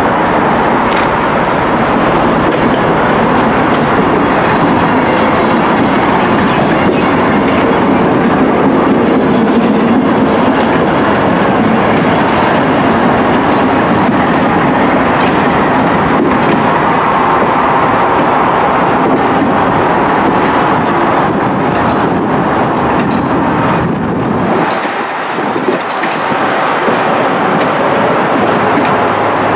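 GBRf Class 73 electro-diesel locomotive passing close by, followed by a rake of 4TC coaches rumbling and clattering over the rails. The noise stays loud and steady, with a short lull near the end.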